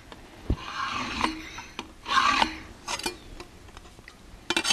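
Dial height gauge scriber scratching bend lines into Sharpie-coated stainless steel plate as the gauge slides across a granite surface plate: two raspy strokes about a second apart, then a few sharp clicks near the end.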